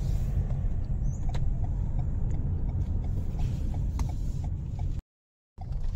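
Steady low road and wind rumble inside a moving car's cabin with the sunroof open, with a few light clicks. The sound cuts out briefly about five seconds in.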